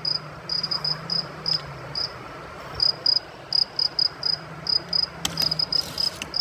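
Cricket chirping in short, high pulses, several a second and irregularly spaced, with a sharp click about five seconds in.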